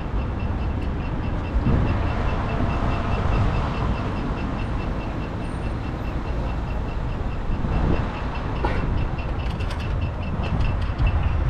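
Wind rushing over the camera microphone and road rumble from a moving bicycle, with a light regular ticking about four times a second. A short run of sharp clicks comes near the end.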